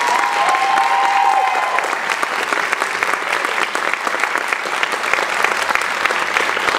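Audience and performers applauding steadily, with a couple of long high cheers over the first two seconds.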